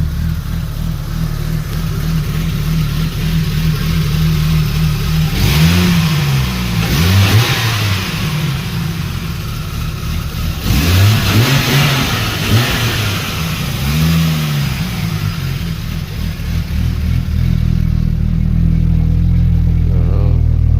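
Turbocharged 4.0-litre Ford Intech SOHC straight-six, just started, idling steadily, with two spells of throttle blips in the middle where the revs rise and fall several times before settling back to idle.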